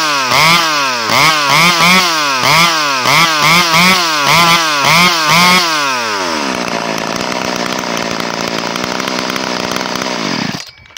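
Ported two-stroke chainsaw engine with its exhaust outlet narrowed to 15 mm, loud, blipped to high revs and back a little over twice a second. About six seconds in it settles to a steady idle, then is shut off, its pitch sinking as it stops just before the end.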